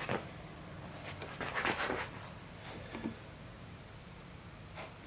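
Steady high-pitched insect chorus with a short chirp repeating about three times a second, over which come a few brief rustling noises, the loudest about one and a half to two seconds in.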